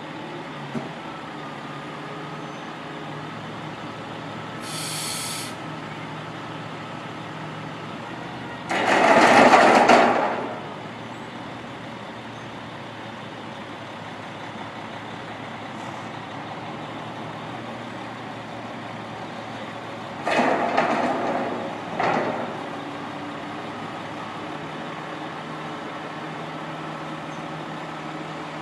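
Semi truck's diesel engine running steadily while its hay-bale bed tilts up, with a loud burst of hissing air about nine seconds in and a second set of shorter air hisses around twenty to twenty-two seconds.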